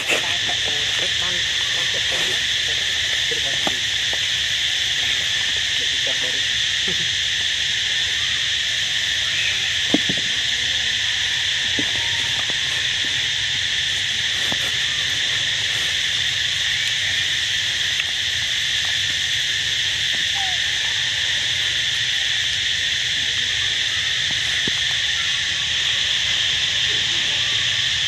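A dense insect chorus buzzing steadily at a high pitch, unbroken throughout, with a few faint clicks and one sharper click about ten seconds in.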